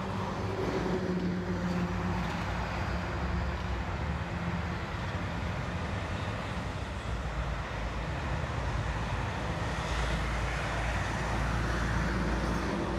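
Street traffic: a steady road rumble of passing cars, with a vehicle's engine hum fading out in the first three seconds and a deeper rumble building about ten seconds in as another vehicle passes.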